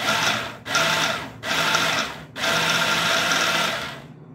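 Electric hand blender running on its mini chopper bowl in short pulses, press-and-release, chopping crumbly flour-and-milk dough into even grains. Four bursts with brief gaps, the last one the longest.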